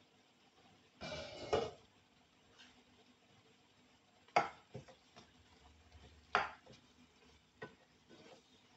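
Cooking utensil noises at a frying pan: a short scraping rustle about a second in, then several sharp clinks and knocks of a spatula against the pan.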